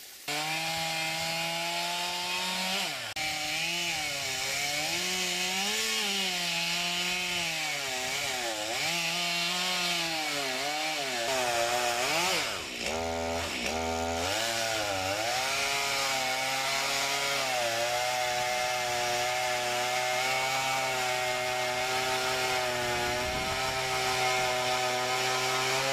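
Gasoline chainsaw running at high revs while bucking a thick, hollow linden trunk into rounds. Its pitch wavers up and down as the chain bites and eases off, dips sharply about halfway through, then holds steady and high.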